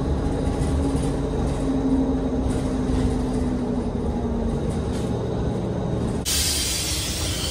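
Bus engine running with a low rumble and a steady hum. About six seconds in, a loud hiss of air starts.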